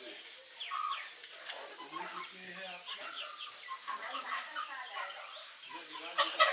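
A steady, high-pitched drone of insects, with birds chirping over it.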